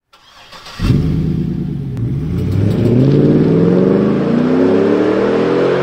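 A car engine accelerating hard. It comes in suddenly just under a second in, and its pitch climbs over several seconds, with one short drop about two seconds in.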